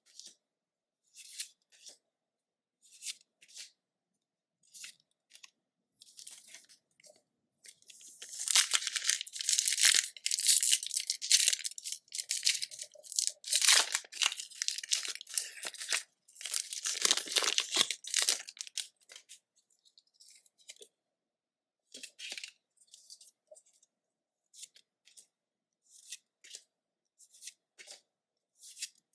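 Foil booster-pack wrappers being torn open and crinkled by hand, in a long stretch of dense, loud tearing starting about eight seconds in. Before and after it come light, scattered rustles of handling the packs and cards.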